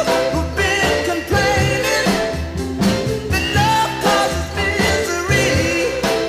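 Background music: a song with a singer over bass and a steady beat.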